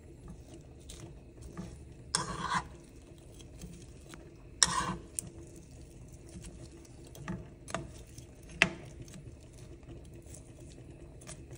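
Metal spoon stirring shrimp in butter in a frying pan, scraping and clicking against the pan, with louder scrapes about two and five seconds in and sharp taps near eight and nine seconds.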